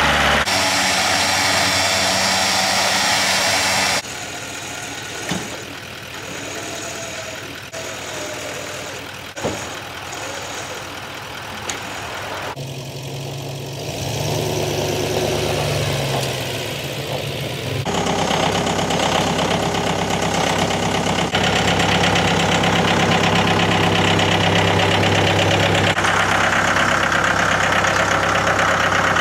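Farm tractor engine running steadily while pulling a trailer loaded with a pickup truck. The sound jumps abruptly in level and tone several times, and a few sharp knocks come through in the quieter middle stretch.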